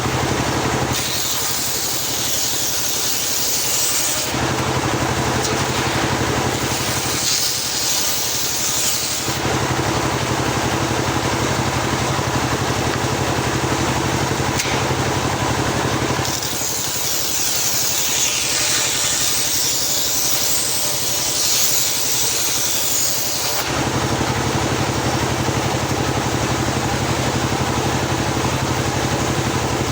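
Homemade circular sawmill running steadily, its blade cutting lengthwise through a teak log in three stretches. Each cut brings a high-pitched whine; the first comes about a second in, the next around seven seconds, and the longest lasts some seven seconds near the middle.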